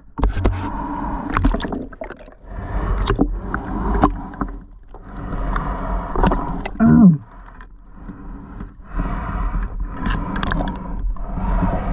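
Shallow water sloshing and splashing in repeated surges every second or two, over a low rumble.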